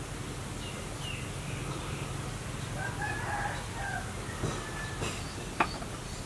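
Rooster crowing once, about halfway through, over scattered small bird chirps and a steady low hum. A single sharp click near the end.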